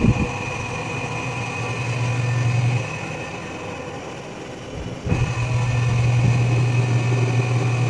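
Whirlpool LSP880GP top-load washing machine on its spin cycle: a motor hum that runs for about three seconds, drops away, and comes back about five seconds in.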